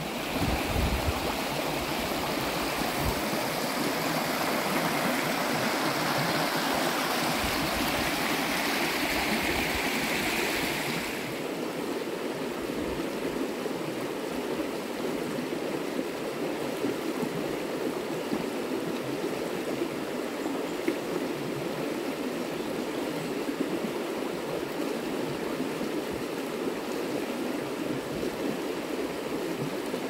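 Shallow rocky stream flowing over stones: a steady rushing hiss of water. About eleven seconds in it drops suddenly to a softer, duller rush.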